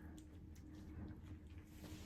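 Near silence: a low steady room hum with a few faint ticks.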